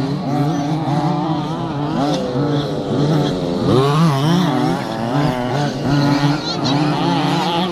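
Several 1/5-scale petrol RC trucks' small two-stroke engines racing together, each revving up and dropping back over and over as they accelerate and brake around the dirt track, with a sharp rising rev a little before the middle.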